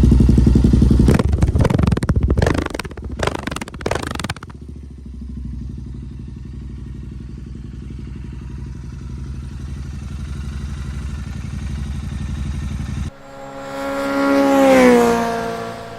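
Royal Enfield Interceptor 650's parallel-twin engine revved hard, then crackling and popping through the exhaust as the revs drop, settling into a steady idle. About thirteen seconds in it cuts abruptly to music with a falling swoosh.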